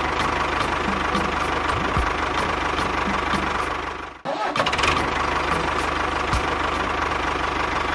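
Tractor engine running steadily with an even pulse, breaking off for a moment about four seconds in and then running on.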